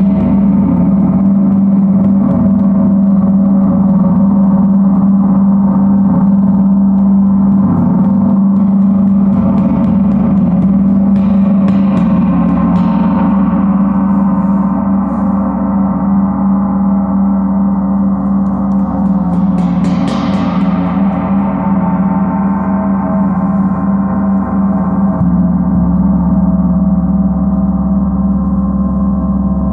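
A 38-inch Paiste Earth Year planet gong, tuned to C sharp (136.10 Hz), is kept ringing with a soft felt mallet. It gives a continuous wash of many overtones, strongest low down, with brighter surges about twelve and twenty seconds in that fade away.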